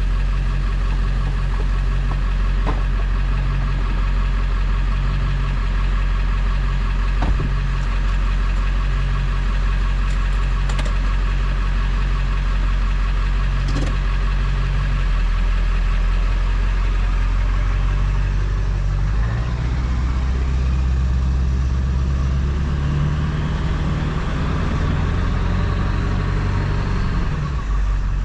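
Straight-piped, muffler-deleted 7.3 L Power Stroke V8 turbodiesel of a 2000 Ford F-350 running steadily at low load. About two-thirds of the way in, it pulls harder and the exhaust gets deeper, with the turbo whistle rising in pitch over several seconds. It eases off near the end.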